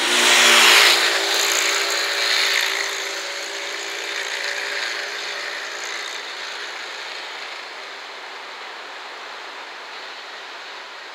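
A motor vehicle passes close by, its engine and tyre noise loudest about half a second in and fading over the next few seconds. After that a quieter, steady rolling noise remains as the EF210 electric locomotive and its container wagons come round the curve.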